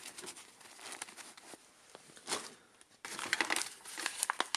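Soft rustling of handled packaging, then from about three seconds in the dense, irregular crackling crinkle of a brown kraft-paper parts bag being picked up and handled.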